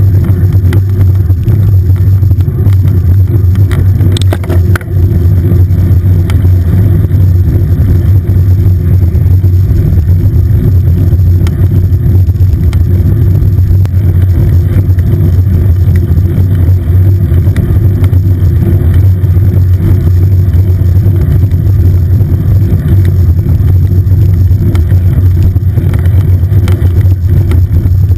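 Wind buffeting the microphone of a bike-mounted camera on a road bike moving at speed: a loud, steady low rumble. About five seconds in it dips briefly, with a few light clicks.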